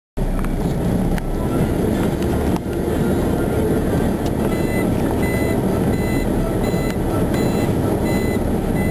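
Heavy lorry's diesel engine running with a steady low rumble. From about four seconds in, a reversing alarm beeps repeatedly at an even pace.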